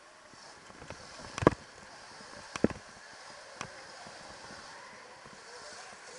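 Electric dirt bike riding over a bumpy dirt track: a steady hiss of tyres and moving air, broken by three sharp knocks and rattles from the bike, the loudest about a second and a half in.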